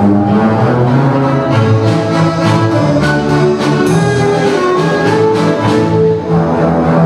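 A large ensemble of double basses, about forty players, bowing a traditional tune together in sustained, full chords.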